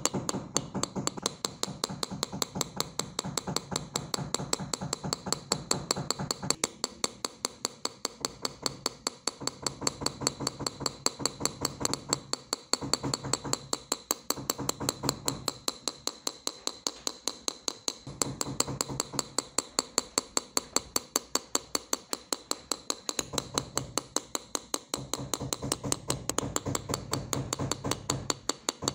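Hand engraving tool tapped along the cut lines of a thin metal sheet: a fast, even run of small sharp metallic taps, with brief pauses as the tool is repositioned.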